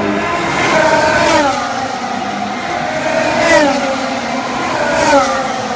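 Formula One cars' 1.6-litre V6 turbo hybrid engines running on track. The engine note falls sharply in pitch three times: about a second in, at about three and a half seconds, and at about five seconds.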